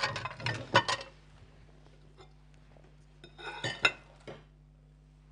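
Dishes and cutlery clinking and knocking on a kitchen counter in two short spells: near the start and again about three and a half seconds in.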